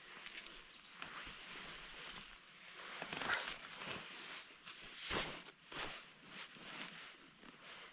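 Rustling and handling noises with a few sharp clicks or knocks, the loudest a little after five seconds in.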